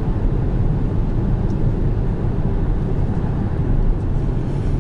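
Steady tyre, road and wind noise inside the cabin of a 2020 Kia Soul Booster cruising at expressway speed.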